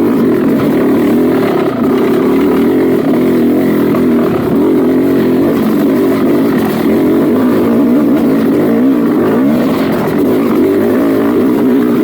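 Dirt bike engine running loud and continuously, its revs rising and falling as it is ridden.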